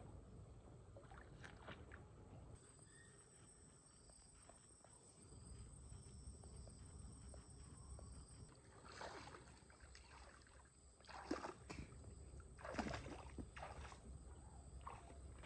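Lake water splashing and sloshing around a person wading out of the shallows, a handful of separate splashes in the second half.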